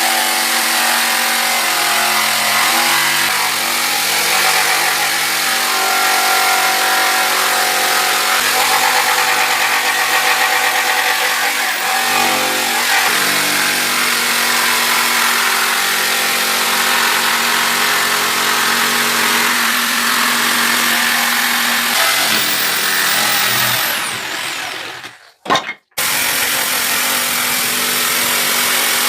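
Power tool motor running steadily while working wood, its pitch shifting now and then with the load. It fades out about 24 seconds in, goes quiet for a moment, then starts up again.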